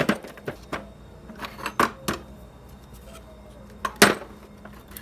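Metal hand tools clinking and knocking against each other as they are picked up and set down, a string of sharp clicks with the loudest knocks at the start and about four seconds in.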